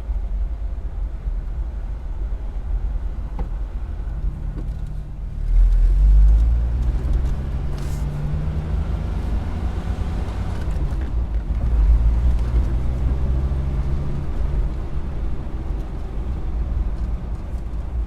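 Car engine running at a low steady idle, then pulling away about five seconds in with the engine note rising as it accelerates, with a second surge of engine noise around twelve seconds in: stop-and-go driving.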